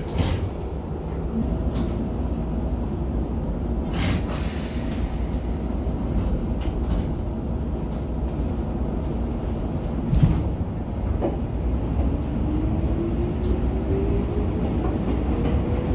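Electric commuter train starting away from a station, heard from just behind the driver's cab: a steady low rumble of the running gear with a few sharp clicks, and a rising electric motor whine in the last few seconds as it picks up speed.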